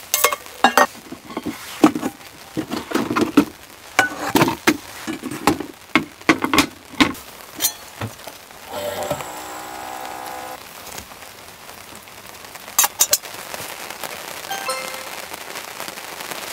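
Rain falling, with many sharp, irregular taps and clicks in the first half, two more near the end, and background music.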